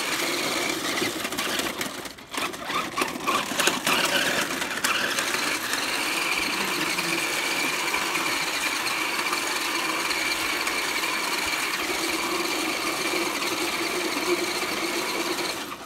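Small electric motor and gears of a toy RC 4x4 truck whining steadily as it drives, stuttering on and off for a couple of seconds near the start. The whine cuts off near the end.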